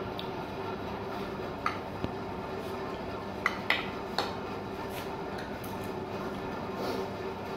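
Metal spoon and fork clinking and scraping against ceramic plates of macaroni, with a few sharp clinks standing out around the middle, over a steady background hum.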